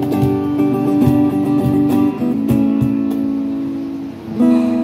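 Acoustic guitar strumming chords and letting them ring, with a few new strums and a fresh chord struck near the end.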